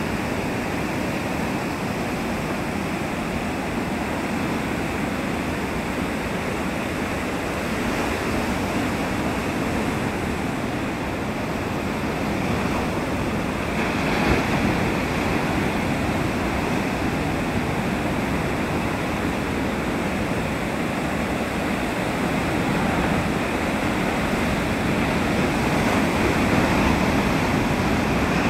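Heavy ocean surf: waves breaking and washing up the beach as a steady rushing noise, swelling briefly about halfway through and again near the end.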